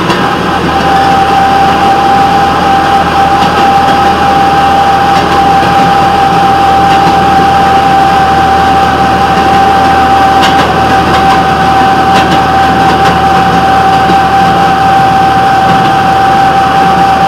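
Rail motorcar (track speeder) running along the rails: loud, steady engine and running noise with a constant whine held at one pitch, starting about half a second in.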